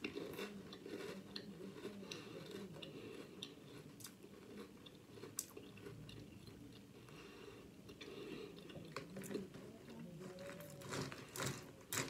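A person chewing a mouthful of mint chocolate Drumstick cereal (cocoa nuggets and crispy cone pieces) in milk, with scattered small crunches.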